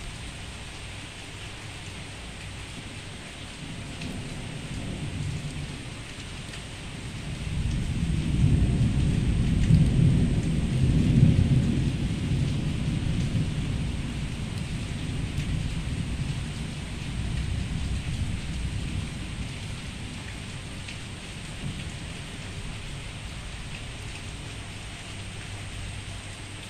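Rain falling steadily, with a long rolling rumble of thunder that builds from about four seconds in, is loudest around the middle, and slowly dies away.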